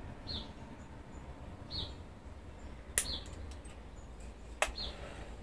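A bird gives a short, high chirp over and over, about every second and a half. Two sharp snips come about three and four and a half seconds in, from wire cutters cutting old aluminium training wire off an olive bonsai.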